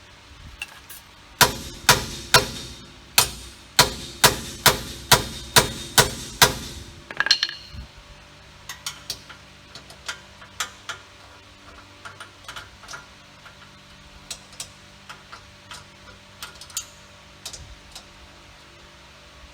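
Hammer striking steel: about a dozen hard blows, roughly two a second, driving out a Toyota Corolla's rear wheel hub bearing assembly. These are followed by lighter, scattered taps and clicks.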